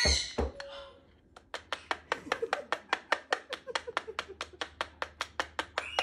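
A white-bellied caique tapping rapidly on a cardboard box, sharp even taps about six a second that begin about a second and a half in and keep going. A short squawk comes right at the start.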